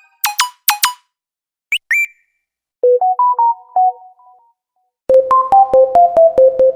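A string of short electronic phone notification tones, one after another: two bright pings, a pair of quick chirps about two seconds in, a short few-note melody about three seconds in, then from about five seconds a descending run of notes over a held tone, with quick ticks about five a second.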